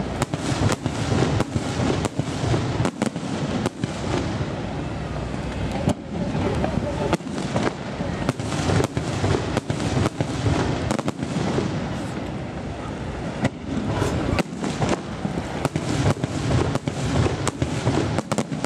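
Aerial fireworks display: a rapid, unbroken barrage of shell bursts and bangs, several a second, over a constant low din.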